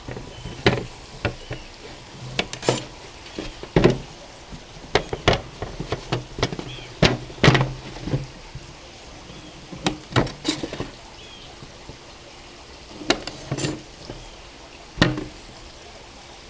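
Chef's knife cutting and trimming dry-aged ribeye on a metal sheet pan: irregular sharp clicks and taps as the blade strikes the pan, some leaving a short metallic ring, with quieter spells between.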